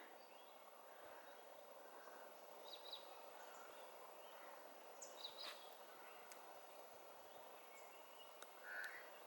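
Near silence: faint rural outdoor ambience with a few brief, distant bird chirps, one about three seconds in, one about five seconds in and one near the end.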